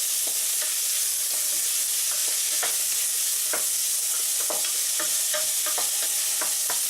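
Mushrooms and onions sizzling in hot oil in a frying pan: a steady hiss with scattered small crackles.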